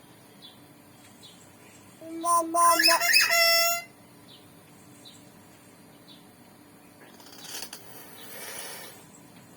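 Hill myna giving one loud whistled call about two seconds in, lasting nearly two seconds: a few steady notes, then a bright, rising run of tones. Later comes a softer noisy, breathy sound lasting a couple of seconds.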